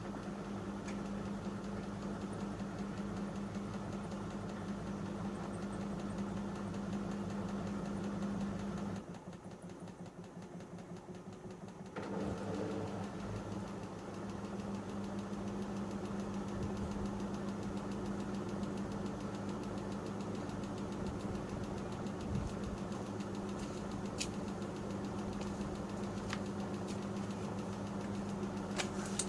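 Panasonic NA-147VB2 inverter washing machine with its drum turning at speed and a steady motor hum. The hum stops about nine seconds in and the machine goes quieter for a few seconds, then the drum starts turning again. This fits the machine's repeated struggle to distribute an unbalanced load before the final spin.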